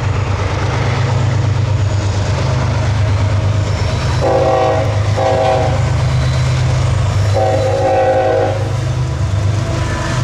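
Freight train's diesel locomotives passing with their engines running in a steady low drone. The locomotive horn sounds three times, two short blasts then a longer one, each a multi-note chord.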